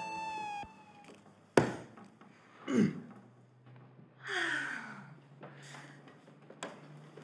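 A held musical note slides down in pitch and stops, then a sharp knock, then two falling sighs about a second and a half apart.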